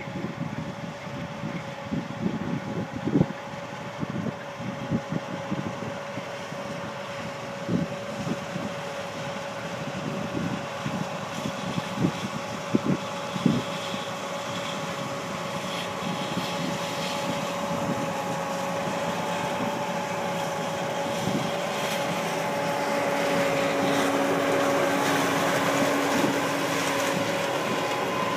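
A vehicle engine running steadily with a constant whine, growing louder in the second half, with wind on the microphone and scattered knocks in the first half.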